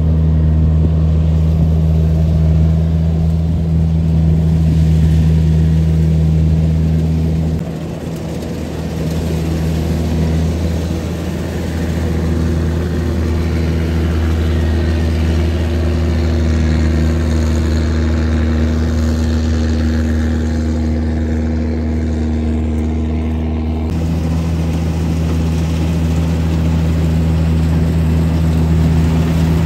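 Kubota DC-93 combine harvester's diesel engine running steadily as the machine cuts and threshes rice. Its note dips and shifts about eight seconds in, then goes back to the first note later on.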